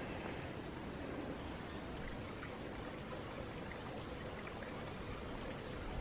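A steady, even rushing noise with low rumble and a few faint ticks.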